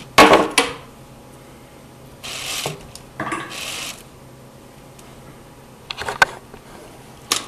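Plastic clicks and rattles from a Lego Technic tow truck's crane winch and gears as the rope is let out, with a couple of short rustles in the middle. The sharpest clicks come right at the start and again near the end.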